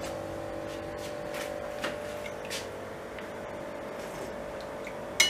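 A metal spoon clinking faintly against a china soup bowl a few times over a steady low hum, as soup is spooned up and tasted. A short sharp sound comes near the end.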